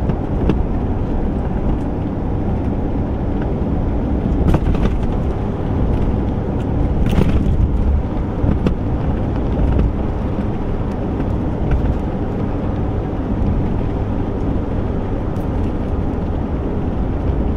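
Old Chevy driving on a smooth paved road, heard from inside the cab: a steady low rumble of engine and tyres, with a few brief knocks about four and seven seconds in.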